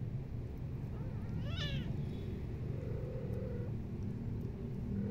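A cat meows once, a short high call that rises and falls, about one and a half seconds in, over a steady low rumble.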